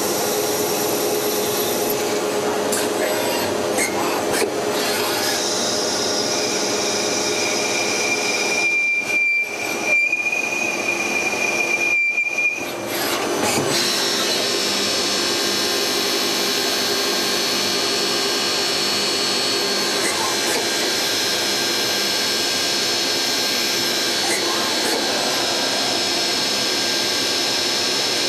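Miyano BNA-42DHY CNC lathe running a machining cycle: a steady mechanical whir and hiss. A thin high whine joins in for about six seconds in the first half, and the sound briefly drops out twice.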